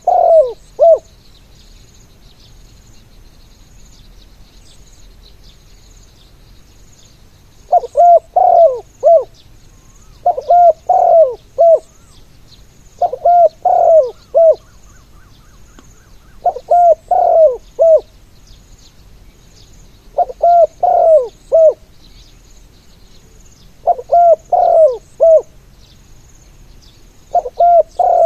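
Spotted dove decoy bird cooing: short phrases of four or five coos, repeated every three to four seconds after a pause of several seconds at the start. Faint high chirps run underneath.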